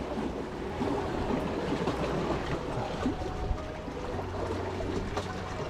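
Sea water washing among shoreline rocks, a steady wash.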